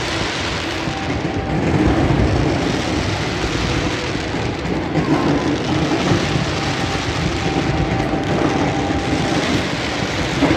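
Fireworks show: a dense, steady crackle and rumble with no single standout bang.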